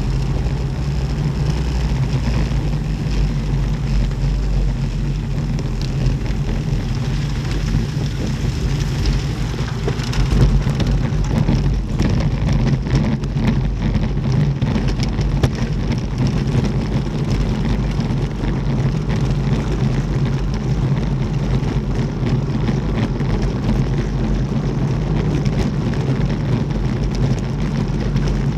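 Road bike ridden fast on a rough unpaved gravel and dirt path: wind rush on the bike-mounted camera's microphone and tyres rolling over the rough surface, with many small clicks and rattles from the bike.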